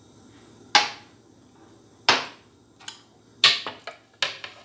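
A few sharp clinks and knocks of kitchenware: a small glass and a kitchen knife handled around a pan and a plastic cutting board. There are single strikes about a second and two seconds in, and a quick cluster of knocks a little after the middle.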